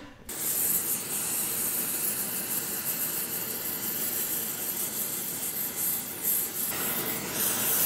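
Gas torch flames, a hand blowtorch and a gas welding torch, burning with a steady loud hiss as they heat a crankshaft to red heat, with a filler rod ready for brazing.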